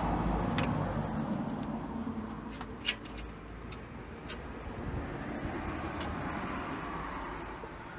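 A few light metal clicks and taps as a lift block is set onto a stack of levelling plates on a Land Rover Discovery's rear axle spring seat, over a steady background rumble that slowly fades.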